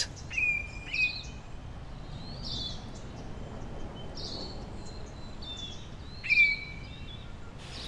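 Birds calling over a steady outdoor hiss: short whistled chirps and calls, the clearest about half a second in, at about one second and again at about six seconds.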